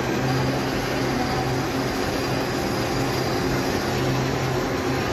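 Small steel roller coaster running on its track: a steady mechanical rumble with a low hum that breaks off and comes back a few times.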